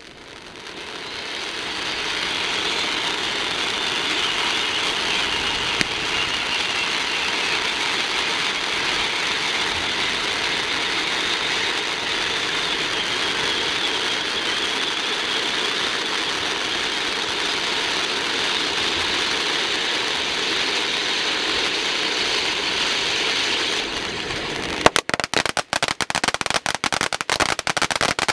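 A "Summer Time" ground firework fountain hissing steadily as it sprays sparks, swelling up over the first two seconds. About 25 seconds in, the hiss gives way to rapid crackling pops.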